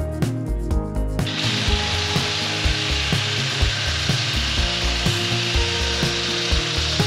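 Background music, with a steady rasping tool noise that starts abruptly about a second in and runs for about six seconds while the steel frame of an ATV bale trailer is being assembled.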